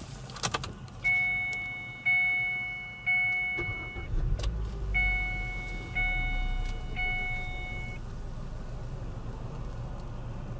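2015 Kia Ceed's dashboard warning chime, a clear ringing tone that fades away, sounding three times about a second apart. About four seconds in, a click and the engine starting bring in a low steady rumble. Three more chimes follow over the running engine.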